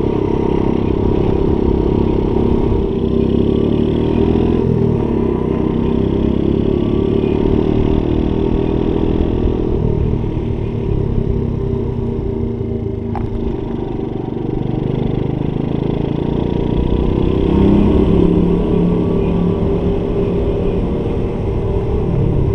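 Honda Monkey Z50J's small air-cooled single-cylinder four-stroke engine running as the bike is ridden. Its pitch rises and falls several times with the throttle.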